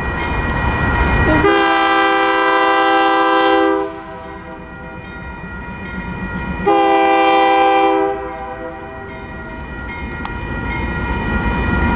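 Diesel locomotive air horn sounding twice, a long blast of about two seconds and then a shorter one of about a second, each a chord of several tones. Under it runs the low rumble of the passing locomotives.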